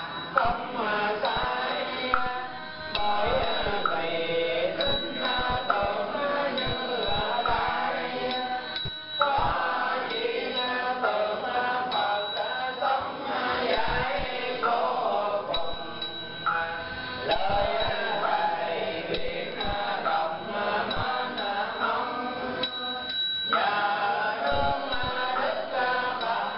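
A group of men and women chanting a Buddhist recitation in unison in Vietnamese, a steady sung-spoken line broken by a few short pauses.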